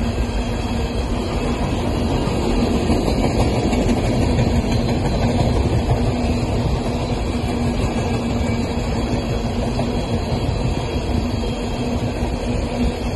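Coal cars of a freight train rolling past: a steady rumble and clatter of steel wheels on rail. Over it runs a steady low hum that grows stronger and fainter.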